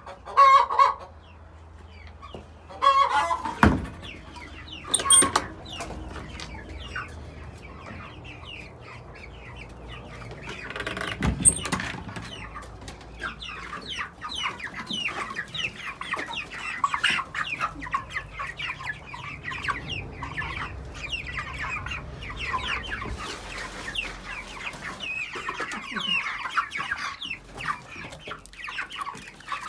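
Chickens calling: broody hens give a few loud clucks in the first few seconds, with a knock about four seconds in. From about eleven seconds many young chickens peep and chatter continuously.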